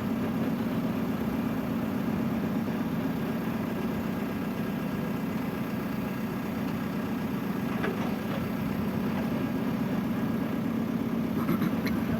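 Truck engine idling steadily, with a couple of faint light clicks about two-thirds of the way in and again near the end.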